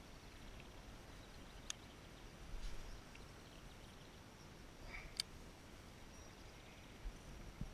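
Quiet open-air background broken by two sharp clicks, about two seconds and five seconds in, and a few dull low bumps, from fishing gear being handled on a plastic kayak.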